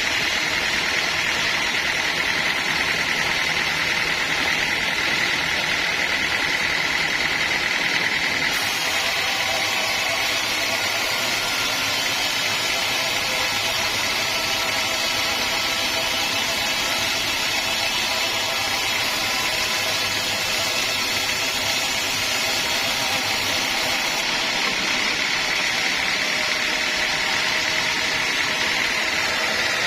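Sawmill running steadily, a constant mechanical noise with a high, even whine on top; a brighter hiss joins about nine seconds in and drops away again about six seconds before the end.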